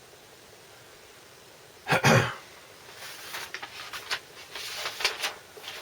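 A brief loud burst about two seconds in, followed by irregular rustling and scraping as vinyl records and their paper and card sleeves are handled.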